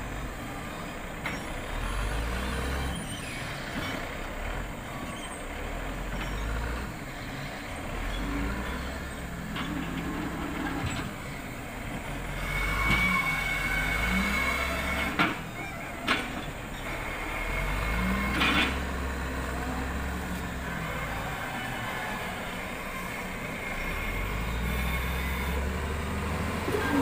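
Caterpillar wheel loader's diesel engine revving up and down under load as it works a log grapple, unloading logs from a logging truck. Three sharp knocks stand out in the middle.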